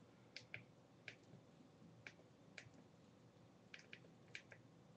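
Faint clicks of a flip phone's keypad buttons being pressed, about nine presses at irregular spacing, some in quick pairs.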